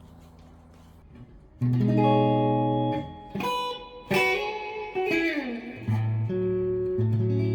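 Effonia Stellar electric guitar with neodymium pickups being played: a fading note, then a chord struck about a second and a half in, a run of single notes with one sliding down in pitch, and more chords near the end.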